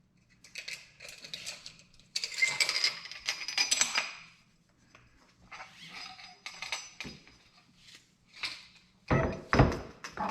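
Metal parts and tools clinking and rattling while a dirt-bike fork's damper assembly is put back into the fork tube, in scattered bursts, with a couple of heavier knocks near the end.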